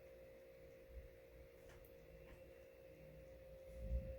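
Very quiet room tone with a faint steady tone, like an electrical whine, running throughout, and a soft low bump near the end.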